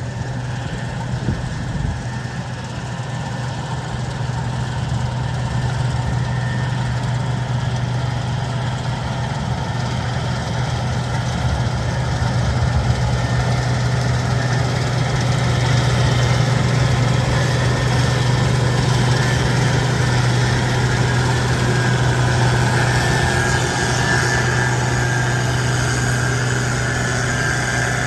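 Combine harvester running with a steady low engine drone, getting louder over the first half and then holding steady. A faint higher whine rises above it near the end.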